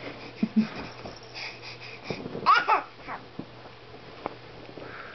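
A baby's voice: a short, high squeal that rises and falls about halfway through, with a few soft knocks around it.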